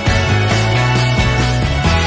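Background music: a full band track with bass notes that change every half second or so.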